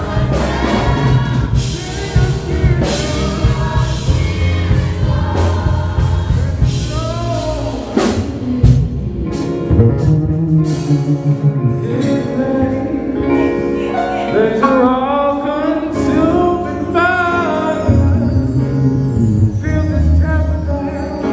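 Live gospel song: a male lead singer on a handheld microphone, backed by a choir and a band with electric guitars.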